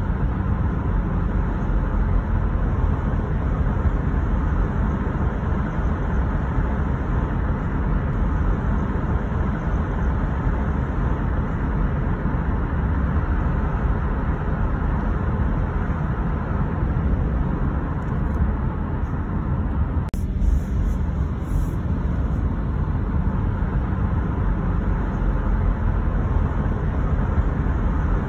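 Steady, deep road and tyre noise of a car driving along a city street, with a short knock about twenty seconds in.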